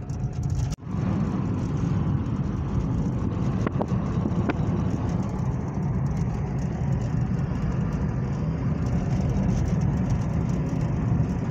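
Steady low rumble of road and engine noise inside a moving car. It cuts out for an instant just under a second in.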